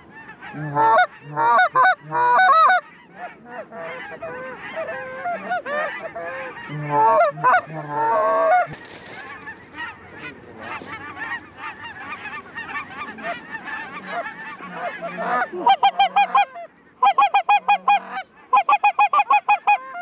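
Canada geese honking: many overlapping calls from a flock overhead, with loud clusters of honks about a second in and again midway, and fast runs of loud, close short honks, several a second, near the end.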